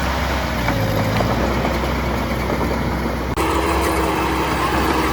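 Heavy diesel construction machinery running steadily with a low engine hum. The sound changes abruptly a little over three seconds in, and a steady whine is heard after that.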